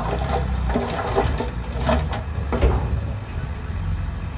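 Heavy diesel machinery engine running low and steady, with several sharp metallic knocks and clanks scattered through it.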